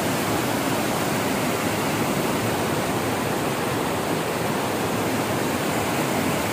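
Water pouring through a weir into foaming whitewater: a loud, steady rush.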